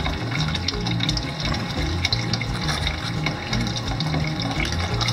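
Water running steadily down a plastic bucket sluice concentrator and splashing into the bucket below, with a low hum underneath.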